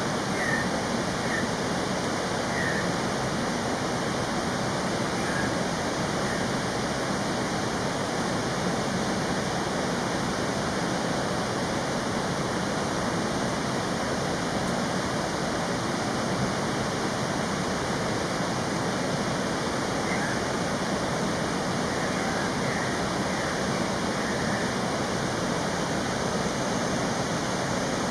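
Steady rushing of running water, an even noise with no change. A few faint, short, high bird chirps come through near the start and again about two-thirds of the way in.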